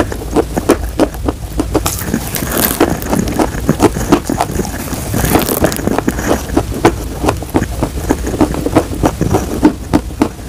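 Close-miked crunching and chewing of crumbled chalk: a dense, irregular run of crisp crackles, with two short hissing rushes about two and five seconds in.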